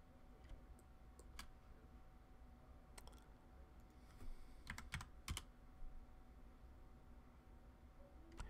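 Near silence over a faint low hum, with a few scattered soft clicks of a computer keyboard, most of them bunched a little before the middle.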